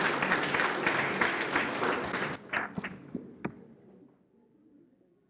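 Audience applauding, dying away about two seconds in to a few last scattered claps.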